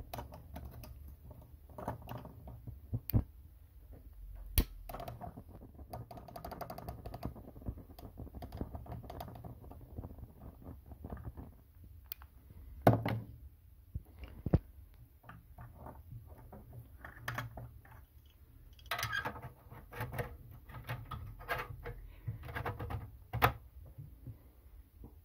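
Scattered light clicks and knocks of handling: a stick lighter and a small metal fuel tray being moved about, with a few sharper clicks standing out.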